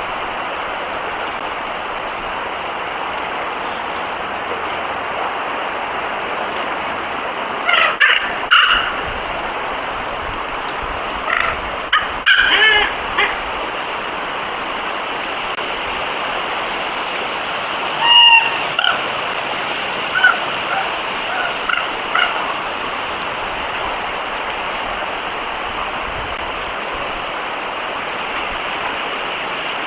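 Steady outdoor hiss with a few short clusters of squeaky animal calls, about eight, twelve, eighteen and twenty-one seconds in.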